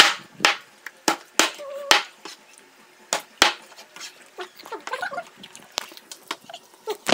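Meat cleaver chopping fried chicken on a cutting board: a run of sharp chops about every half second through the first three and a half seconds, then lighter knocks.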